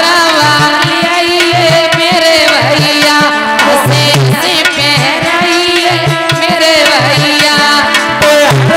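Live Indian folk wedding-song (bhat geet) music: a hand drum plays a steady beat under a wavering melody line, loud and continuous.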